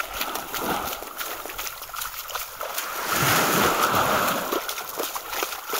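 Small sea waves washing onto a beach, one surging louder about three seconds in, with scattered small ticks.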